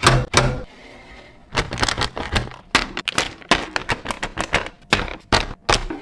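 Drink cans and bottles being set down one after another while stocking a fridge: a quick run of sharp clicks and clunks, with a short pause about a second in.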